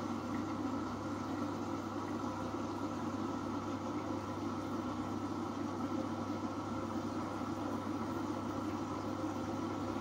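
Samsung Eco Bubble front-loading washing machine filling with water: a steady rush of inflowing water over the laundry, with a steady low hum.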